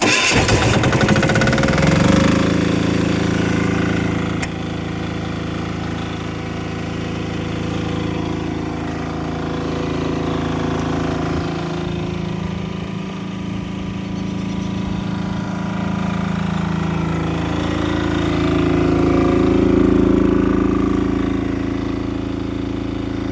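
A car engine is started, catches and revs up over about two seconds, then idles steadily, its note swelling slightly now and then.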